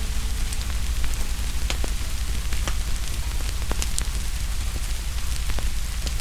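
Steady rain with a low rumble, and a wood fire crackling over it with scattered sharp pops.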